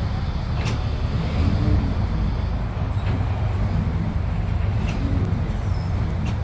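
Heavy truck's engine running steadily with a low rumble, with a few short clicks or rattles.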